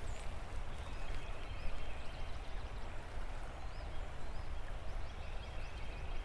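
Creekside ambience: a few short, high bird chirps scattered over a low, steady outdoor rumble.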